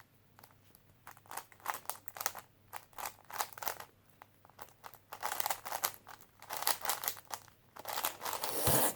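GAN 3x3 speedcube being turned fast in the hands: quick, uneven runs of plastic clicks, getting busier in the second half, with a louder clatter just before the end.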